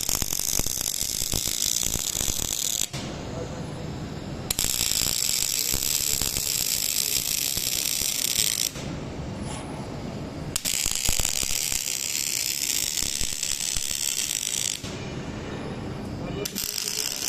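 Arc welding by an OTC welding robot: the arc crackles and hisses in runs of about four seconds each. Between runs there are quieter gaps of under two seconds, three times, as each weld stops and the next starts.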